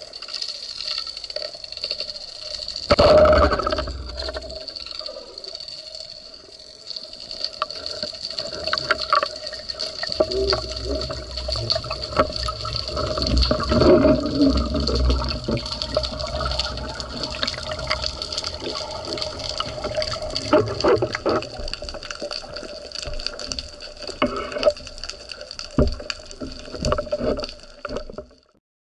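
Underwater water noise around a wooden spearfishing gun: a sudden loud thump about three seconds in as the band-powered speargun fires, then sloshing, bubbling and scattered knocks as the diver hauls in the speared fish. A steady high whine sits under it all.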